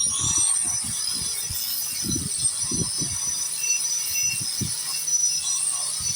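Power grinder grinding paint off a concrete foundation wall, running with a steady high whine and irregular low knocks and scraping as the disc bears on the concrete.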